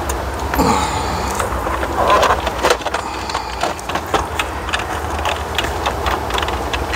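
GM truck instrument cluster being pulled out of its dash opening by hand: a run of plastic clicks, knocks and rattles, with a short squeak near the start.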